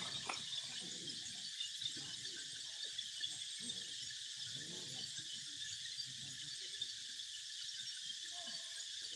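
Steady, high-pitched insect chorus, with faint voices low underneath at times.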